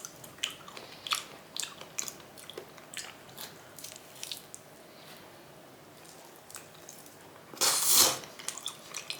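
Close-miked wet chewing and biting of raw chicken, a run of short sticky mouth clicks, with a louder noisy burst lasting about half a second near the end.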